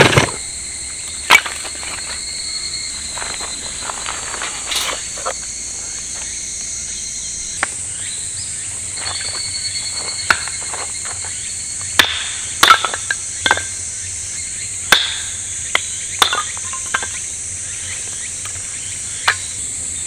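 A steady chorus of insects chirring at a high pitch, broken about ten times by sharp, separate knocks and clicks, the loudest sounds, a few of them in quick pairs.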